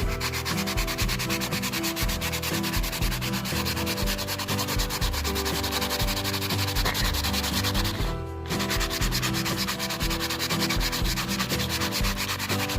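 Fast back-and-forth scrubbing of a rusty machete blade with aluminum, a continuous rasping rub that stops briefly about eight seconds in. The aluminum is eating the rust off the steel.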